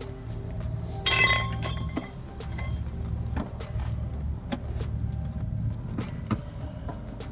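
A loud metallic clank with a short ringing clatter about a second in, then scattered light clicks of tools and parts, over a steady low hum.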